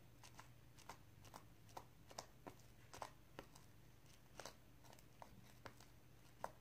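Faint, irregular sticky clicks and pops of fluffy shaving-cream slime being kneaded and pulled by hand, a couple a second.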